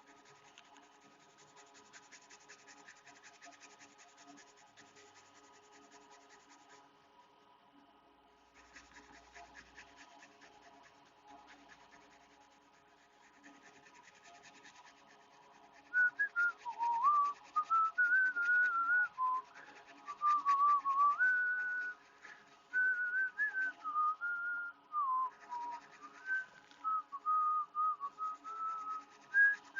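A person whistling a wandering tune, starting about halfway in and the loudest sound. Under it, fast scratchy rubbing as flux is scrubbed off a laptop motherboard, over a faint steady hum.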